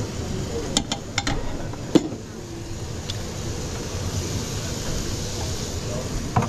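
Kitchen background: a steady hum with a few sharp knocks and clinks of kitchenware, the loudest about two seconds in.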